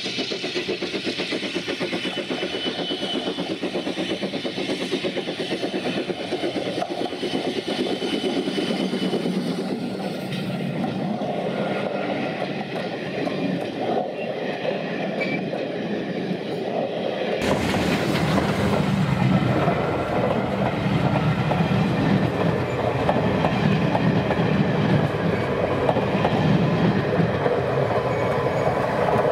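Steam train passing: the red Bagnall 0-4-0 saddle tank locomotive working as it comes by, then its carriages rolling past with a clickety-clack of wheels on the rails. More than halfway through, the sound turns suddenly louder and deeper.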